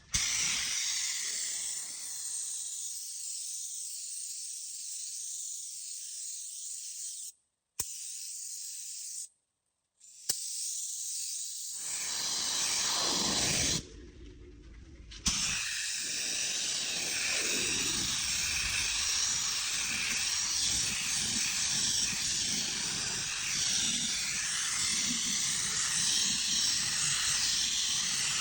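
Compressed-air spray gun spraying automotive primer: a steady hiss of air and atomised paint. It breaks off twice into dead silence in the first ten seconds and goes quieter for a moment near the middle, with a low rumble underneath in the second half.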